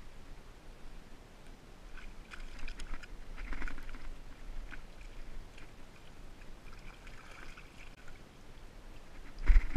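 Scattered rustling, small clicks and light water splashing as a caught tilapia is handled and unhooked over a landing net, with two loud bumps near the end.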